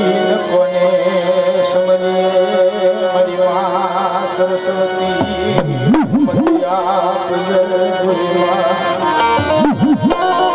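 Instrumental Gujarati devotional music: a held melody with a wavering pitch over a steady accompaniment, and a low sound sliding up and down about halfway through and again near the end.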